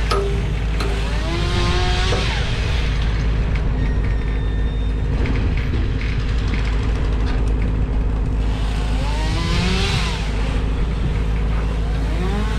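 An engine running steadily, its pitch rising twice as it is revved, once right at the start and again about nine seconds in.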